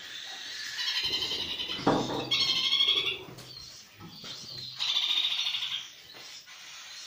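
Pet parakeets squawking and chirping in three loud bouts of high calls, the loudest about two to three seconds in, with a short rough squawk near two seconds.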